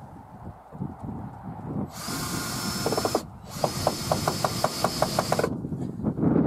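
Cordless drill-driver run in two short bursts, each a steady high whine, the second with a regular clicking of about six a second.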